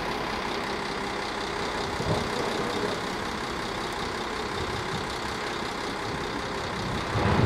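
Steady running noise of a diesel-hauled passenger train pulling out: the coaches rolling away on the rails, with the class 754 diesel-electric locomotive's engine running ahead of them. A low rumble swells near the end.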